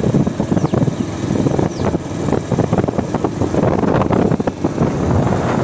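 Wind buffeting the microphone of a motorcycle ridden at about 30 km/h, with the bike's engine running under it.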